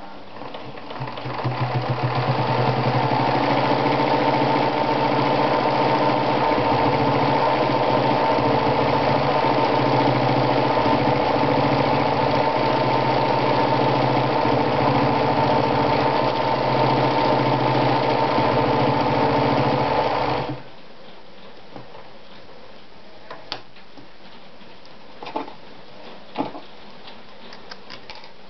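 Anker RZ sewing machine running at a steady sewing speed as it stitches through a strip of fabric; it picks up speed about a second in, runs evenly for about twenty seconds, then stops suddenly. A few light clicks follow.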